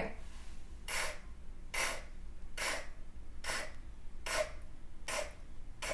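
A woman repeating the unvoiced English /k/ sound seven times at an even pace, each one a short puff of air with no voice behind it. This is an aspirated K, shown against the voiced G.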